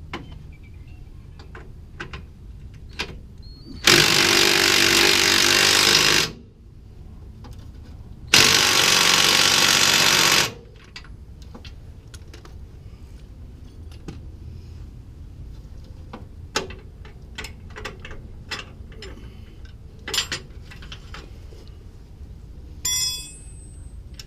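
Impact wrench run in two bursts of about two seconds each, a couple of seconds apart, with scattered clanks of tools and parts before and after.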